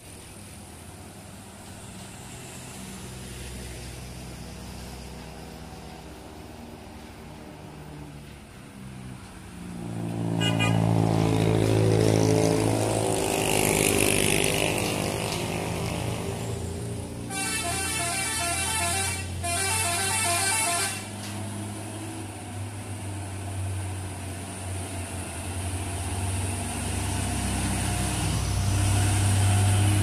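A Hino truck's diesel engine running and growing much louder from about ten seconds in as the truck approaches and passes close. A bit past halfway a multi-note telolet-style horn sounds in two short bursts of rapidly alternating notes.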